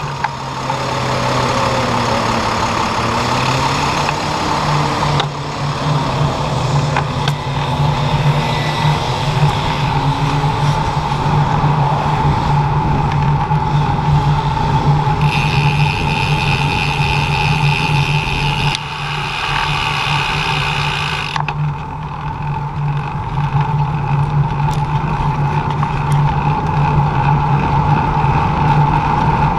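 Street traffic and road noise heard from a moving bicycle: a steady hum throughout. In the first few seconds a motor vehicle engine revs up and drops back.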